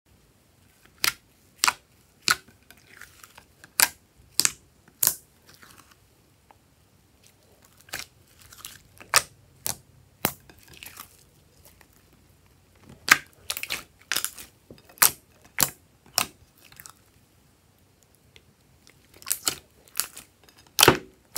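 Hands kneading and squeezing thick glossy slime, making sharp, sticky pops and clicks in irregular runs, with short pauses between the handfuls.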